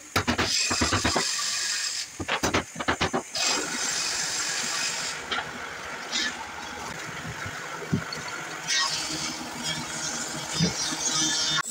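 Hammer tapping on a particleboard panel to fix a metal drawer slide: two quick runs of sharp taps in the first few seconds, then a steady background noise.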